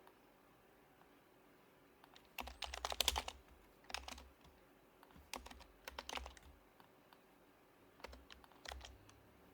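Typing in short, quick bursts on an HHKB Professional HYBRID Type-S keyboard with silenced Topre switches, giving soft, muted keystrokes. The first couple of seconds hold only quiet room tone; the densest burst of keys comes about two and a half seconds in, followed by three shorter runs.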